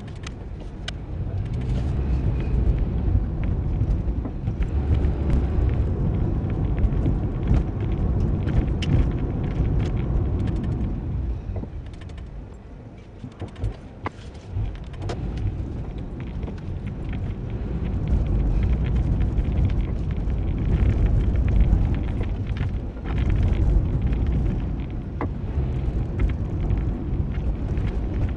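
Low rumble of a moving car, road and engine noise, with scattered clicks and knocks. It eases off for a few seconds about halfway through, then builds again.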